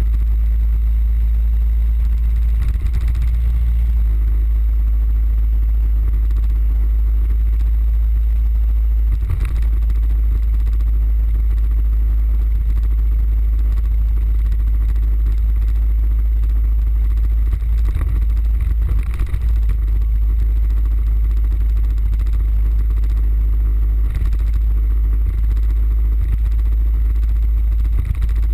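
Suzuki Burgman 650 scooter cruising at a steady speed, its engine drone mostly buried under a constant deep wind rumble on the microphone. A few brief knocks come through, once near the middle and twice more a few seconds later.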